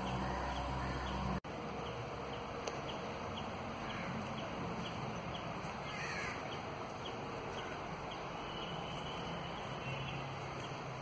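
Outdoor morning ambience: a steady hiss with a regular run of short, high chirps, about three a second, and a brief gliding call near the middle. A low hum cuts off abruptly about a second and a half in.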